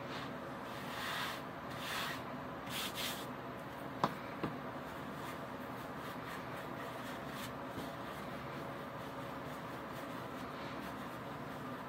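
Hands rubbing and rolling sourdough dough on a floured granite countertop: a few soft brushing swishes in the first three seconds and two light taps about four seconds in, then only a faint steady hum.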